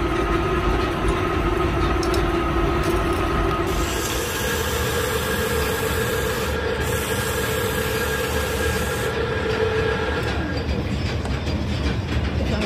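Metal lathe running with a truck axle shaft turning in its chuck: a steady mechanical rumble with a humming tone that steps higher about four seconds in and fades out about ten seconds in. A high hiss comes in around four seconds and stops about nine.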